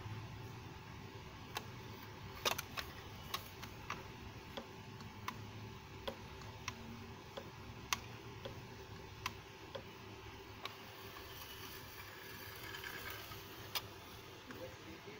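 Irregular light clicks and taps, roughly one a second with a sharper pair about two and a half seconds in, over a steady low hum: handling noise of hard plastic toys and the phone holding them.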